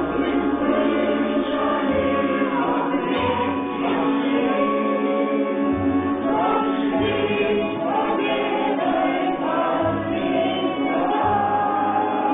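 Folk choir singing a Soviet wartime song in several voices, over low sustained accompanying notes.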